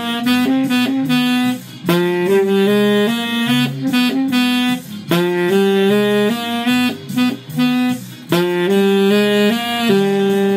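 Saxophone played solo: phrases of short, separated notes with brief breaks between them, ending on a long held note near the end.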